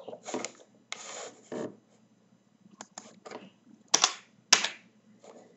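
Computer keyboard keys clicking in a few scattered strokes while a web address is edited, with two sharper, louder clicks about four seconds in. A short rush of noise comes about a second in.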